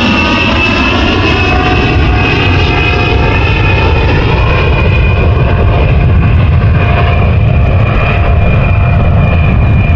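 Engine noise: a loud, steady low rumble with a high whine that falls slowly in pitch.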